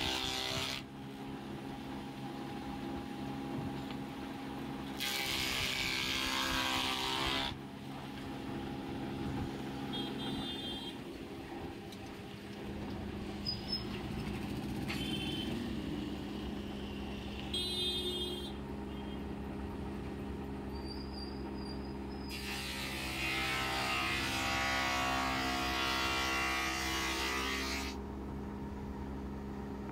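Wood spindle moulder with a raised-panel bit running steadily with a motor hum, rising three times into louder rushing stretches as the cutter takes wood, the longest near the end.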